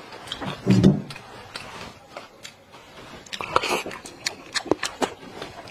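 A person eating at the table: biting and chewing with many short sharp clicks, and a brief voiced sound about a second in.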